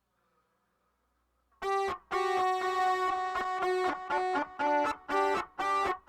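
Isolated pianica (melodica) part played through a filter effect. After about a second and a half of near silence, a melody of short pitched notes begins, broken by several brief gaps.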